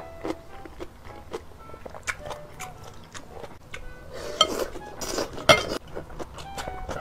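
Chopsticks clicking and tapping against glass bowls, then loud slurping and mouth noises about four seconds in as a mouthful of food from spicy broth is sucked in.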